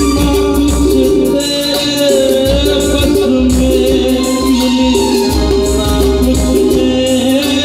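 Live band music played loud through stage speakers: electric guitars and keyboards over a steady beat, with a male singer's voice on the microphone.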